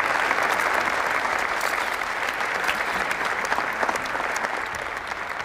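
Audience applauding: a dense, steady clatter of many hands clapping that slowly dies down toward the end.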